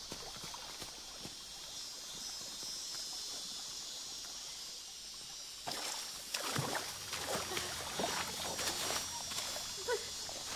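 Jungle ambience with a steady insect hiss, then, about five and a half seconds in, a sudden falling whoosh followed by rustling and squelching in wet leaves and mud as someone crawls through them.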